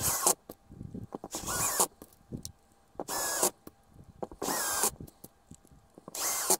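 Power drill driving M3 self-tapping countersunk screws into a 3D-printed plastic ring in five short bursts about a second and a half apart, its motor whine rising in pitch as it spins up each time.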